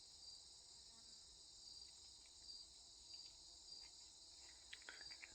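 Faint evening chorus of crickets: a steady high trill with a chirp repeating about every half second, and a few soft ticks near the end.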